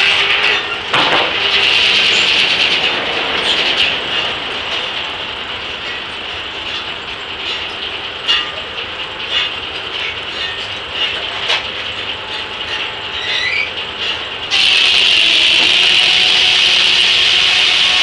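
A large steam-driven circular saw blade ripping through an elm log with a loud, hissing whine, the cut ending about four seconds in. A quieter stretch follows, with scattered sharp clicks and clanks from the mill's carriage and setworks. Then, about three-quarters of the way through, the blade bites into the log again and the loud cutting noise comes back abruptly.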